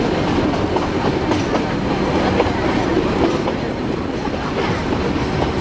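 Nilgiri Mountain Railway metre-gauge passenger coaches running along the track, heard from an open coach window: a steady rumble of wheels on rails with faint scattered clicks.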